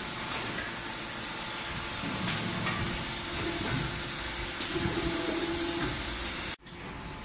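Brake-pad hydraulic press machines running: a steady hissing machine noise with a few sharp metallic clicks and a low hum. The noise drops suddenly near the end.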